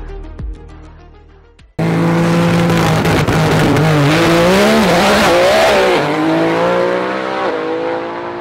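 Music fading out, then about two seconds in a loud race-car engine revving starts abruptly. Its pitch wavers and rises, then drops away and fades toward the end.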